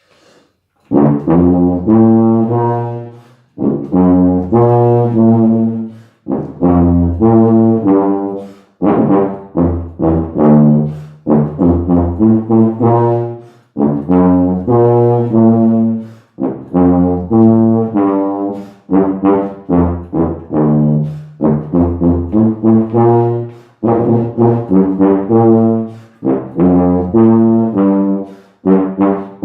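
Olds B-flat fibreglass tuba played solo: a run of short phrases of low, sustained notes at changing pitches, with brief breaths between phrases.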